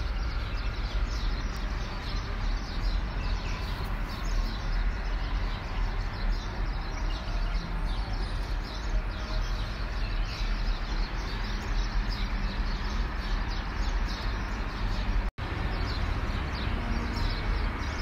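Many small birds chirping over a steady low rumble. The sound drops out for an instant about fifteen seconds in.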